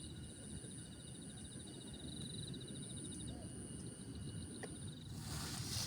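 Insects trilling steadily outdoors: one high continuous buzz and a second fast pulsing trill, over a low rumble of wind noise. About five seconds in, a burst of rustling hiss covers them.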